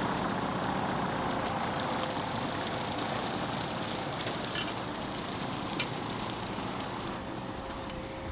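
New Holland Workmaster 55 tractor's diesel engine and its PTO-driven rotary cutter running steadily while mowing, the sound fading gradually as the tractor moves away.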